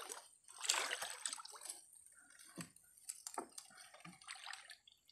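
Water splashing and dripping from a wet fishing net as it is hauled by hand into a small boat, with a louder rush of water about a second in, then smaller drips and rustles of the net.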